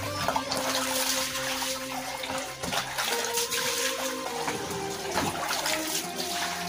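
Water pouring from a tap and splashing as things are washed under it, over background music.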